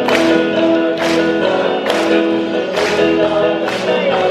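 Music with a steady beat, about one hit a second, and sung voices.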